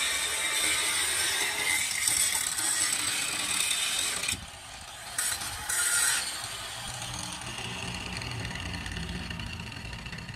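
Electric angle grinder grinding down the weld seam over a repaired crack in a steel truck chassis rail. The grinding is steady for about four seconds, cuts out, comes back in two short bursts, and stops about six seconds in, leaving a low hum.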